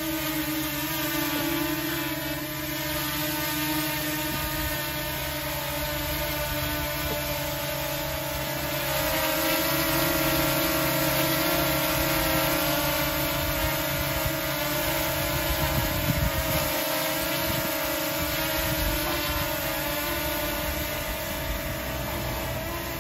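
Small folding quadcopter drone hovering low, its four propellers giving a steady buzzing whine that grows a little louder for a few seconds midway.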